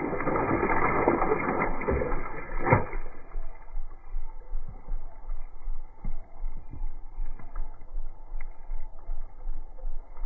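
Water splashing and trickling onto a woven bamboo tray as handfuls of wet raw shrimp are dropped in. It stops sharply about three seconds in, leaving a low rumbling background with a few soft knocks.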